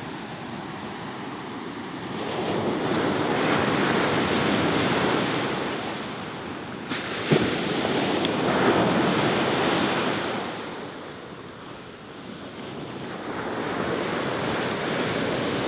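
Surf breaking on a beach, the wash swelling and fading in slow surges, with wind on the microphone. A single sharp click about seven seconds in.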